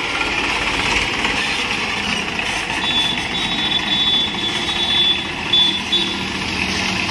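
Massey Ferguson tractor's diesel engine running steadily as the tractor pulls away at low speed for a test drive.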